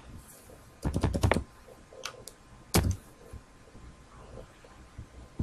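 Typing on a computer keyboard: a quick run of keystrokes about a second in, two lighter taps a little later, then one louder click near three seconds in.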